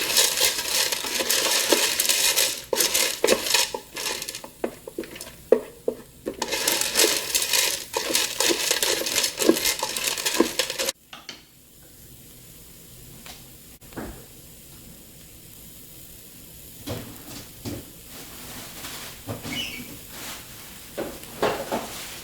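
Dry penne pasta rattling and clattering in the Ninja Speedi's cooking pot as it is poured in and stirred through the sizzling vegetables, in two long spells. About eleven seconds in it stops abruptly, leaving a faint sizzle and a few scattered knocks.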